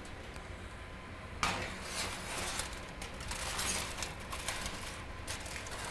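Wall oven door pulled open with a clunk, then a metal sheet pan scraping and clinking against the oven's wire rack as it is slid in.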